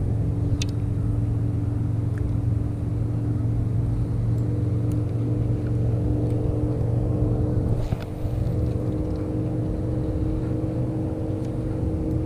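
Steady hum of a boat motor running at a constant pitch, with a low rumble underneath and a couple of faint clicks.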